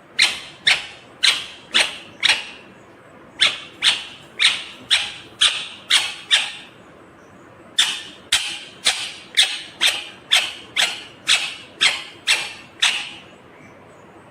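Green ringneck parrot (rose-ringed parakeet) screeching: three runs of sharp, shrill calls at about two a second, with short pauses between the runs.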